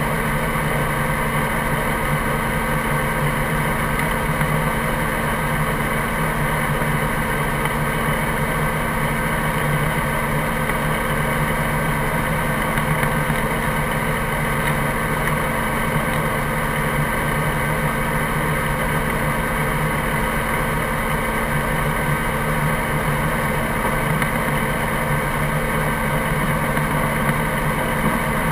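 Helicopter running on the ground, engine and rotor making a steady, unchanging hum with several constant tones.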